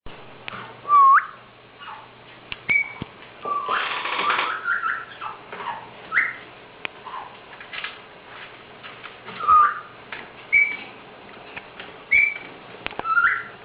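Caique parrot whistling: short, separate whistled notes, most of them quick upward slides, every second or two, with a louder, harsher burst a little over three seconds in.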